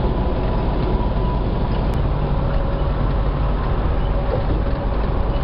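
Loud, steady wind noise and road roar inside a semi truck's cab at highway speed with the windows rolled down.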